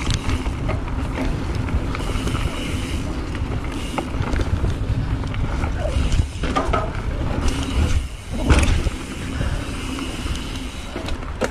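Mountain bike riding fast down a dry dirt trail: wind buffeting the camera's microphone over the rumble of the tyres, with sharp clatters from the bike over bumps about six and a half and eight and a half seconds in.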